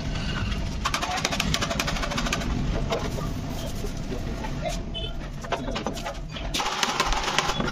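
Sandpaper rubbed by hand over a plastic scooter body panel: bursts of rough scraping strokes, heaviest about a second in and again near the end, with a steady low rumble underneath.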